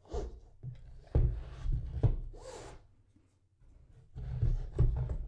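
Handling of a three-volume hardcover box set: a book sliding and rubbing out of its cardboard slipcase, with several soft bumps and knocks as the volumes are shifted in the hands.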